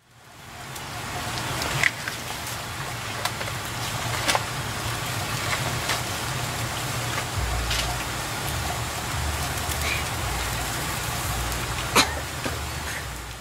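Wood fire burning under a salt-boiling pan, crackling with a few sharp pops scattered over a steady hiss and low rumble; the loudest pop comes near the end.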